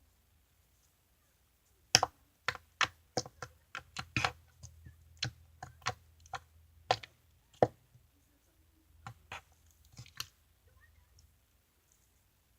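Slime being poked and pressed with fingers, giving a string of sharp, irregular clicks and pops that start about two seconds in and thin out near the end.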